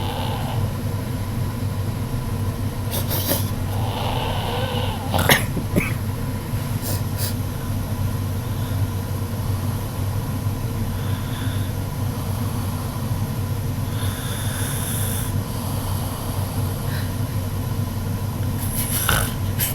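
A girl snoring, with a steady low hum underneath.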